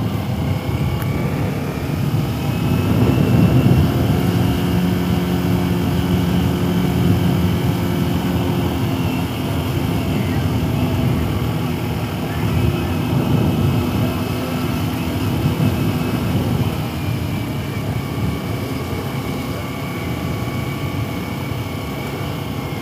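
Sport motorcycle engine running under way at fairly steady revs, heard from the rider's helmet, with a constant rush of wind. The revs hold steady for a long stretch, then the engine note eases off in the last third.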